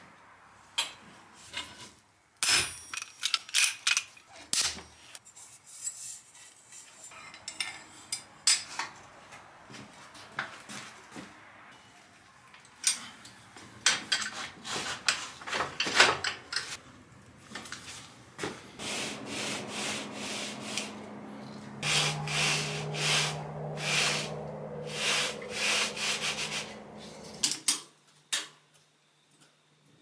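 Workshop handling noises: rubbing and scraping with many scattered clicks and knocks. A steady low hum joins them about two-thirds of the way in and stops near the end.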